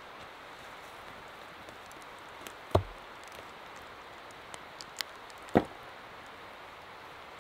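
Two heavy strikes on wood, about three seconds apart, over a steady background hiss.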